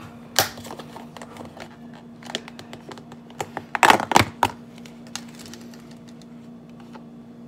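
Snap-on lid of a small clear plastic deli cup being worked and pried off by hand: a sharp click, then a run of small plastic clicks and cracks, loudest in a cluster about four seconds in.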